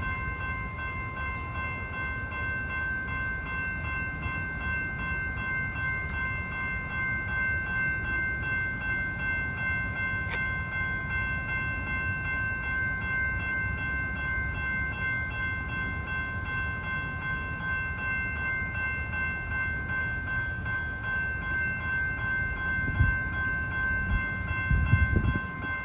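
Railroad grade-crossing warning bell ringing continuously, several steady ringing tones over a low rumble. A couple of louder low thumps come near the end.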